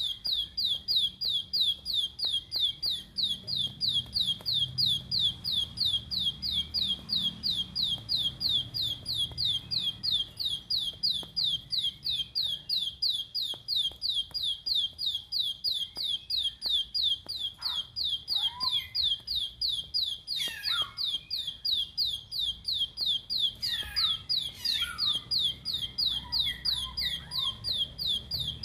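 Plain prinia singing a rapid, unbroken run of high, downward-sweeping notes, about four a second. A few softer, lower chirps come in during the second half.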